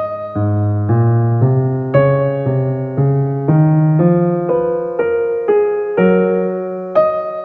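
Background music: a keyboard or piano plays a slow, steady line, with a new note about every half second over held bass notes.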